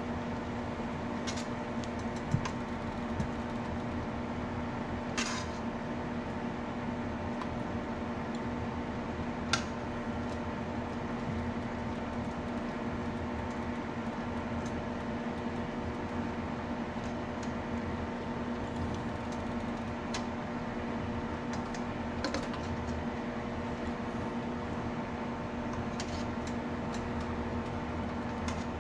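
A stainless stockpot of water at a boil with a steady hum under it, and a few short, sharp clinks of a metal spoon against the pot as peaches are lowered in to blanch.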